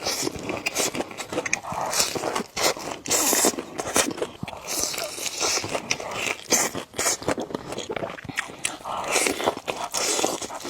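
Mouth sounds of a person eating spicy noodles: chewing and biting, with many short wet clicks and smacks.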